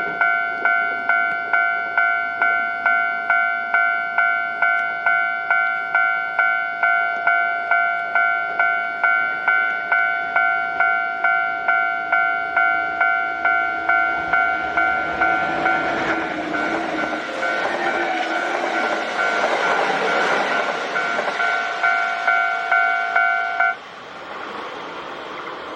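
Japanese level-crossing warning bell ringing, about three rings every two seconds, as a Kintetsu Osaka Line train passes over the crossing. The train's running and wheel noise builds from about fifteen seconds in and is loudest around twenty seconds. The bell cuts off suddenly near the end.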